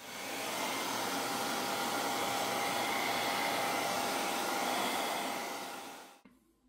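Hair dryer blowing steadily with a thin steady whine, heating a phone's plastic back cover to loosen the adhesive underneath. It fades out and stops about six seconds in.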